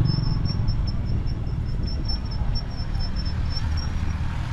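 Steady low rumble of motor vehicle engines, with a thin high-pitched whine that pulses slightly and stops about four seconds in.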